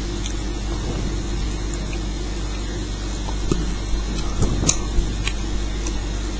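Steady low background hum, with a few light clicks in the second half.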